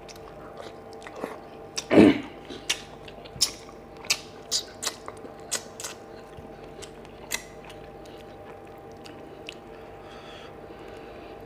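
Close-up sounds of a person eating rice and fish curry by hand: a loud mouthful about two seconds in, then a run of sharp mouth clicks and chewing for several seconds, quieter near the end.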